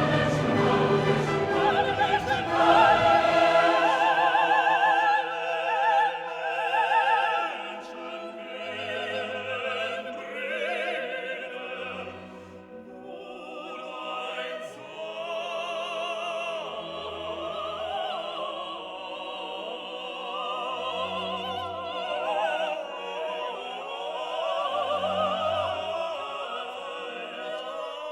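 Classical music: operatic voices singing with wide vibrato over an orchestra.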